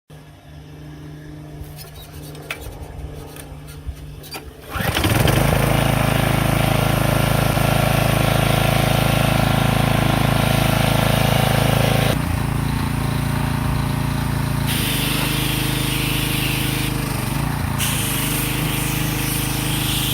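Briggs & Stratton engine on a Craftsman gas pressure washer, starting. At first there is a faint hum with a few ticks, then about five seconds in it catches and runs steadily and loudly. About twelve seconds in the running sound drops slightly in level and changes in tone.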